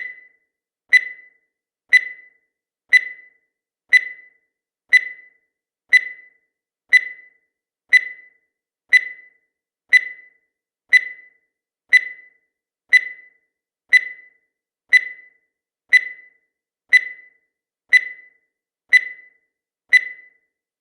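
Countdown timer sound effect: a short, high, sharp tick-beep once a second, each one dying away quickly, marking off the seconds.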